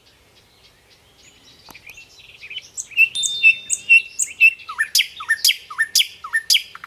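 Birds chirping and singing, building up from about two seconds in, with a quick series of sharp repeated calls near the end.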